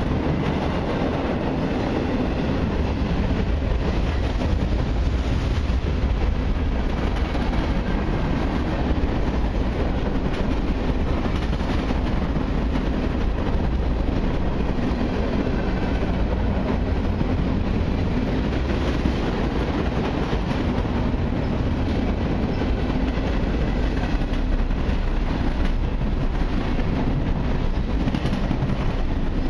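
Freight cars of a long mixed freight train rolling past at close range: a steady rumble with the rapid clatter of steel wheels on the rails, unbroken throughout.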